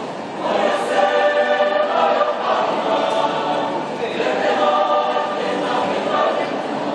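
Choir singing in harmony, the voices holding long chords that change about every second.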